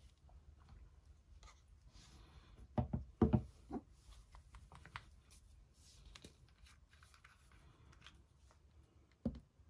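Hands handling painting supplies on a cutting mat: light rustling and scraping, with a cluster of knocks about three seconds in and another single knock near the end as things are picked up and set down.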